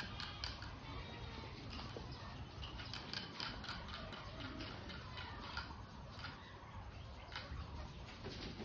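Rabbits chewing and crunching feed: quick, irregular crisp clicks of teeth breaking up dry food.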